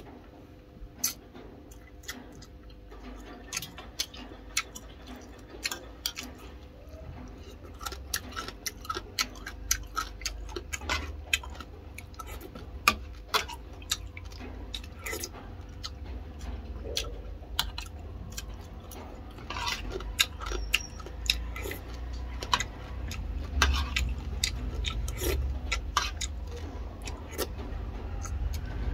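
Close-miked eating: a metal spoon clicking and scraping against a ceramic bowl of soup many times at irregular intervals, with chewing, over a low steady hum.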